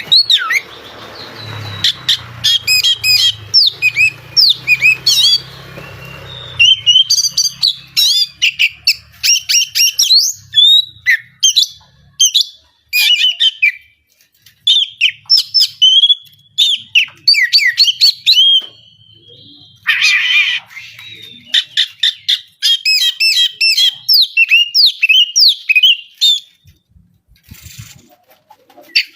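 Oriental magpie-robin (kacer) singing a fast, unbroken song of sharp chirps and whistled glides, with a harsh buzzy call about twenty seconds in. It is an agitated, full-tilt song of the kind played as a trigger to get silent birds singing. A low hum sits under the first six seconds or so.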